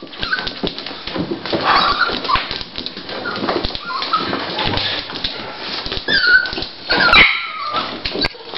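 Toy Pinscher bitch whimpering in several short, high whines while she burrows and scratches in a blanket, the fabric rustling. This is nesting at the onset of whelping.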